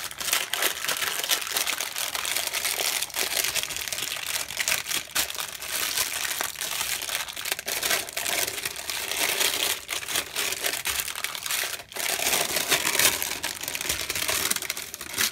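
Baking paper crinkling and rustling as hands press and smooth it over a warm slab of nut brittle and lift it, a dense run of crackles with a brief lull near the end.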